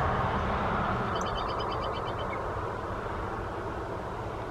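Steady outdoor background rush, with a small bird's short, rapid trill of high notes starting about a second in.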